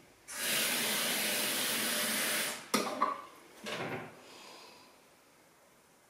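Kitchen tap running into a drinking glass for about two seconds, then shut off with a sharp knock. A couple of short clinks and knocks follow as the glass is handled.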